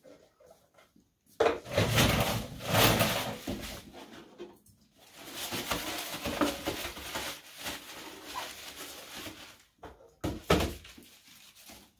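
A plastic care basin and supplies being handled at a counter and sink, with rustling and clattering in two longer stretches, then a couple of sharp knocks about ten seconds in as the basin is set down.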